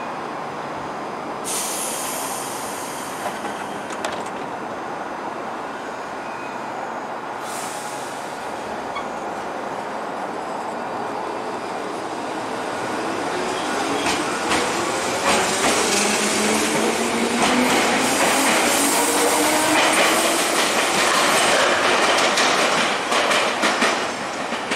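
JR 205 series electric commuter train departing: two short hisses of air early on, then the motor whine rising in pitch as it accelerates away, and the wheels clacking over the rail joints as the cars pass.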